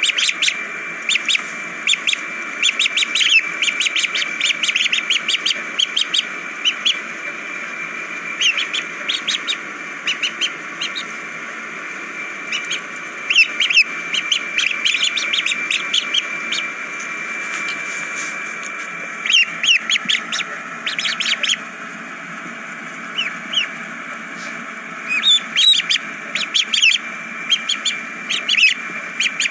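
Ducklings peeping: quick clusters of short high calls, with pauses between them, over a steady background hiss.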